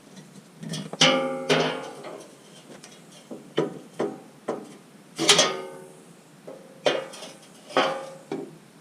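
Hammer blows on a thick steel car skid plate, about nine irregular strikes, each ringing briefly like struck metal, as the dented plate is beaten straight.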